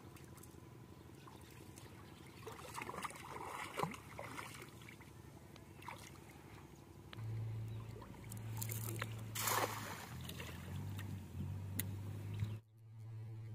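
A cast net splashing down onto pond water in one brief splash about two thirds of the way in, after softer sloshing of legs wading through shallow water earlier on. A steady low rumble runs under the second half.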